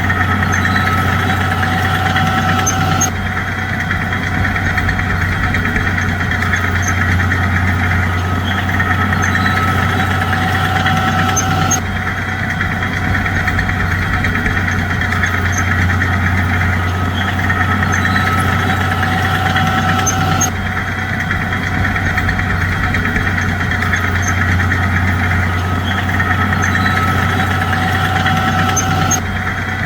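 Bulldozer's diesel engine running steadily, a continuous low drone that shifts abruptly in tone three times, about every nine seconds.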